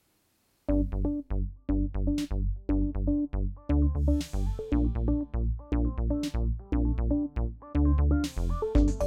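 Background music with a steady beat, starting suddenly about a second in.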